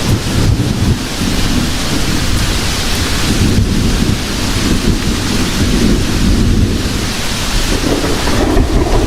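Heavy rain falling steadily with a continuous low rumble of rolling thunder.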